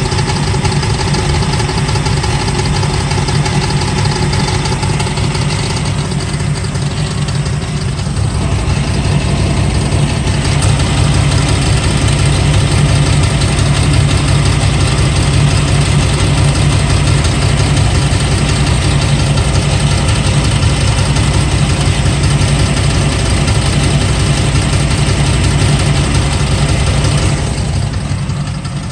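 Chevrolet Camaro LT1 V8 engine running steadily with a rattle noise; it gets a little quieter near the end.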